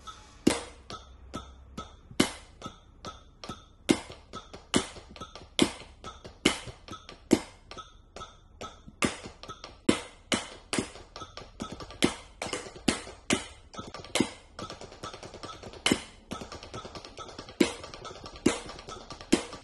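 Wooden drumsticks played on rubber practice pads: a rudimental snare solo at 70 beats a minute, a steady stream of dry taps with a loud accented stroke on roughly every beat.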